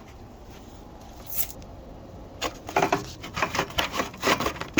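Cardboard packaging being handled and pulled off a miter saw. It is quiet at first, then gives a run of short rubbing and scraping sounds from about halfway in.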